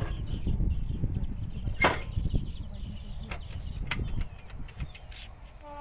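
Wind buffeting a phone microphone, a dense low rumble, with a few sharp clicks of handling noise. Just before the end, a steady pitched tone with overtones starts.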